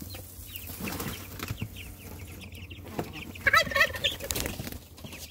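Young chickens peeping and calling as they are tipped out of a wire dog crate, with a louder call about three and a half seconds in. Knocks and rattles of the crate and the soiled bedding spilling out run beneath the calls.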